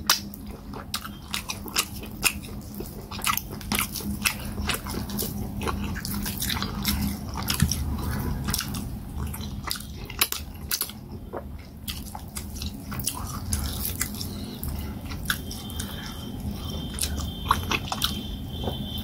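Close-up mouth sounds of a person eating fufu with peanut soup by hand: chewing, with many sharp, wet clicks and smacks of the lips coming irregularly.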